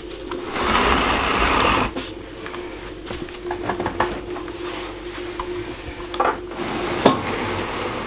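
A small bar fridge being shifted and set back into place: a scraping rush early on, then scattered knocks and rattles, the sharpest about seven seconds in. Under it runs a steady hum, noise which the owner blames on his faulty camera microphone.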